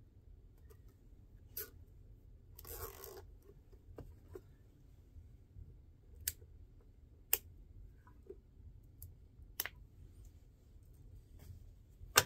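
Plastic cable tie being fastened around wiring: a short ratcheting zip as it is pulled tight about three seconds in, then scattered sharp plastic clicks as the tie and cables are handled.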